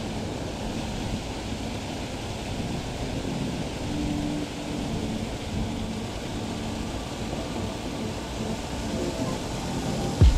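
Water pouring out of a brick canal lock wall and splashing into the canal, a steady rushing and churning.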